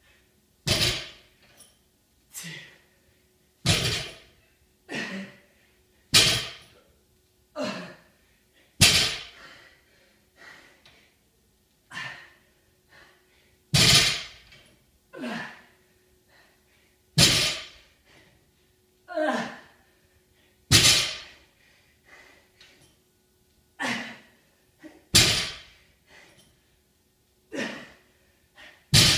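A person's forceful exhales and grunts from hard exercise, each with a thud, about one every second and a half in a steady rhythm of workout reps.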